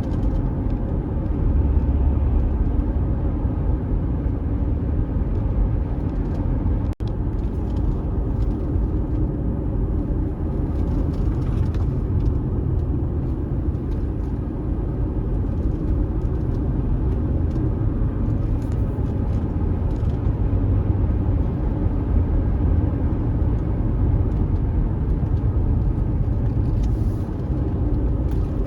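Car driving on an unpaved road: a steady low rumble of engine and tyres, with faint scattered ticks. The sound cuts out for an instant about seven seconds in.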